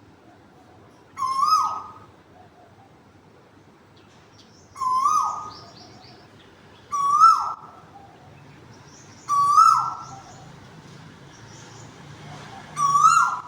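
A cuckoo calling five times, each call a short pitched note that steps up and then trails off downward, spaced two to three and a half seconds apart.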